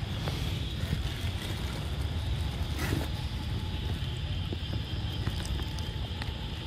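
Steady low rumble of wind on the microphone, with a thin steady high hum and a few faint clicks; a brief rustle about three seconds in.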